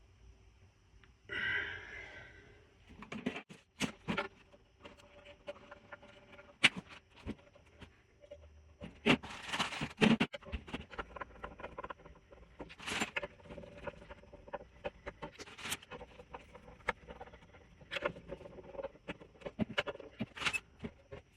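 Guitar parts and small hardware being handled during disassembly: scattered clicks, taps and knocks, with a brief scraping rustle a second or so in.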